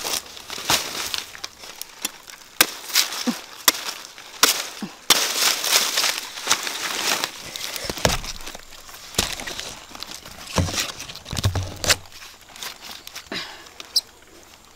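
Dry banana leaves and stalks crackling and rustling with irregular sharp snaps as banana bunches are handled and broken apart.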